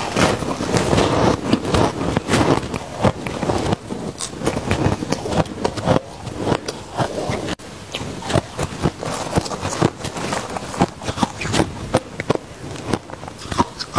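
Crunchy white freezer-frost ice being bitten and chewed close to the microphone: many sharp crunches in quick, irregular succession.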